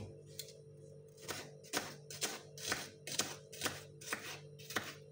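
Kitchen knife slicing a red onion on a wooden cutting board. It is a regular run of short cuts, about two a second, each ending in a light knock on the board. The cuts start about a second in and stop near the end.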